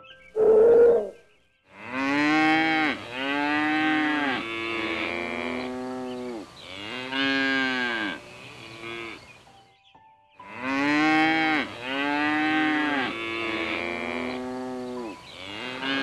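A short higher animal call about half a second in, then reindeer calling: a run of drawn-out, moo-like calls, each rising and falling in pitch, one after another. The run stops briefly about ten seconds in and starts again.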